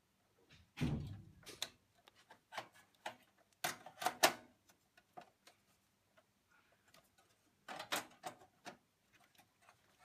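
Sheet-metal hard-drive cage with a 3.5-inch drive in it knocking and clattering against a desktop PC's steel case as it is lowered and seated by hand. A heavier thump about a second in, then several short clusters of clicks and metal knocks.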